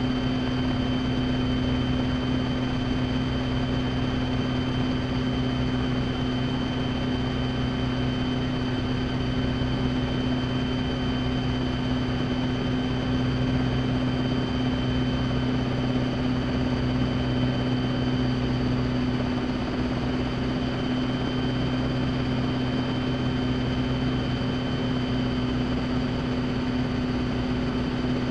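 Rotorway kit helicopter in flight, heard from inside its cockpit: the steady drone of the engine and rotor, with a constant high-pitched whine over it.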